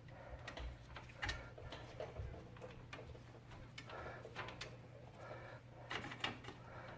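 Scattered light clicks and clinks of hand tools and bolts being handled while fitting a wheel hub assembly, over a faint steady low hum.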